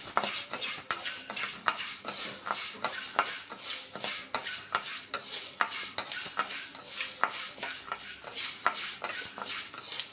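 Urad dal grains being roasted in a stainless steel kadai and stirred briskly with a spatula: a continuous scraping, rattling rush of the grains sliding over the steel, dotted with many small clicks, as the dal is turned until golden.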